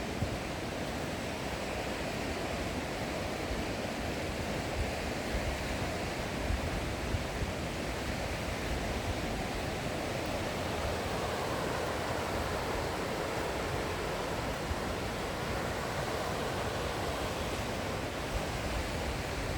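Steady rushing of a fast-flowing river, a broad even noise of water.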